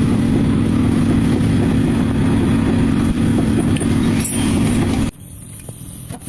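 Car being driven, with a loud, steady rumble of road and running noise that cuts off suddenly about five seconds in. The front shock mount is worn and due for replacement.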